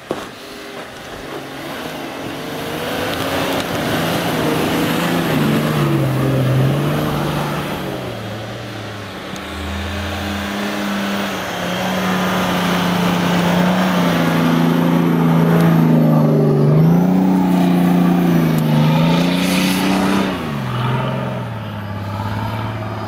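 Off-road 4x4 engine working hard under load, its revs rising and falling repeatedly, then dropping back near the end.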